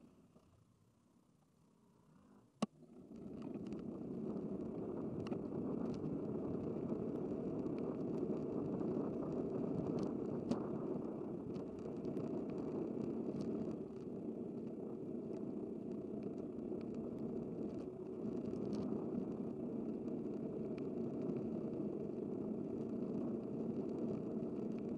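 Steady wind and road noise of a bicycle being ridden, starting about two and a half seconds in with a sharp click after a near-quiet start, with a few faint ticks over the rushing noise.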